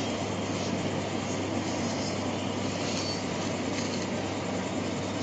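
Steady rushing background noise with a constant low hum, without any distinct events.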